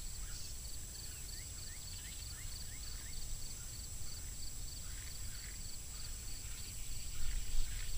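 Outdoor insect chorus: a steady high hum with a second insect pulsing about four times a second. A bird gives a quick run of about six short rising chirps about a second in. A low rumble lies underneath.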